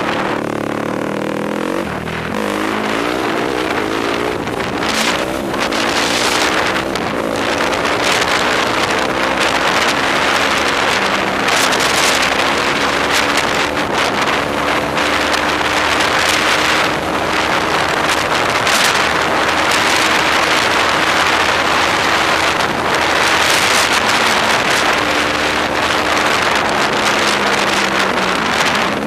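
Yamaha YFZ quad's engine running under way, its pitch dipping about two seconds in and then climbing and holding as it pulls, with heavy wind noise on the helmet-mounted microphone.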